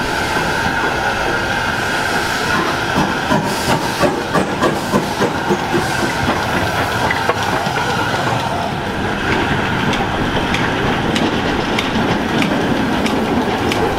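Rhaetian Railway G 3/4 steam locomotive No. 107 moving slowly past, with steam hissing. From about three to six seconds in there is a quick rhythmic beat, about three a second.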